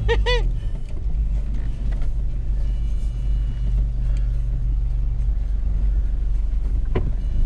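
Toyota Land Cruiser 120 driving off-road: steady low engine and drivetrain rumble whose hum drops away about four seconds in. A short vocal sound comes at the very start and a sharp knock about seven seconds in.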